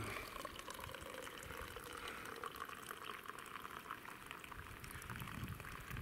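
Tea being poured, a faint steady trickle of liquid.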